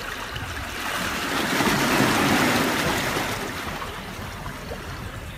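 Sea wave surging against the jetty rocks, swelling to a rushing peak about two seconds in and then washing back.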